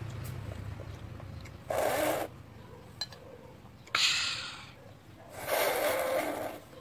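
A boy eating: short noisy breaths and slurps as he sips soup from a spoon. The longest one comes near the end, and there is a single click about three seconds in.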